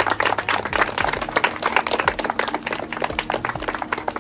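A crowd applauding with dense, rapid hand claps for an award presentation, over steady background music.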